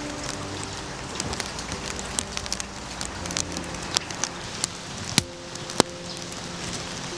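Rain falling steadily, with many individual drops ticking close by and two sharper taps about five and six seconds in.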